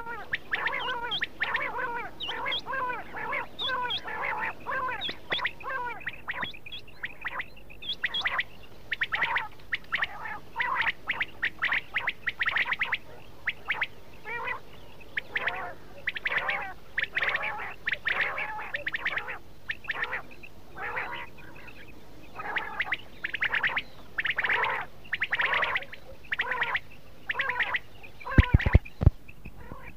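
Quails calling: a dense, continuous run of short repeated calls with brief gaps. A few sharp thumps sound close together near the end.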